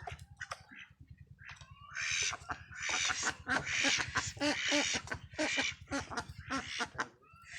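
A flock of Khaki Campbell ducks quacking loudly, many calls overlapping, starting about a second and a half in.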